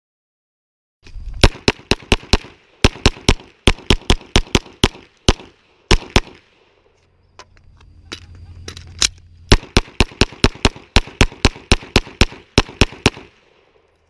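Glock 34 9mm pistol fired rapidly, in two long strings of shots with a pause of about three seconds between them. The shots begin about a second in.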